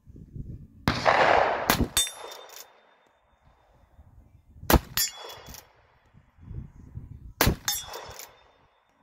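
Taylor's copy of an 1860 Henry lever-action rifle in .45 Colt is fired three times, about three seconds apart. Each shot is followed by quick metallic clicks as the lever is worked. A ringing clang from a steel target plate follows the first shot.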